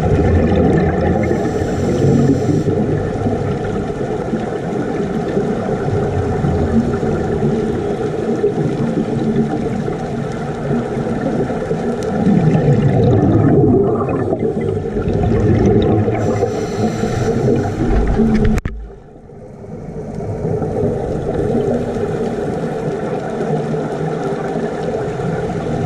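Underwater rumble and gurgle of scuba divers' exhaled bubbles, with a short hiss twice.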